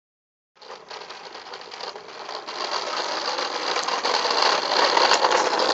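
Plastic wheels of a toddler's push walker toy rolling over rough concrete: a steady gritty rattle that starts about half a second in and grows louder as the walker comes closer.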